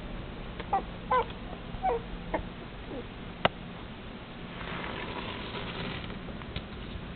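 Red long-haired dachshund puppy making about five short, high whimpering yips in the first three seconds. A sharp click comes about half a second later, then a soft rustle.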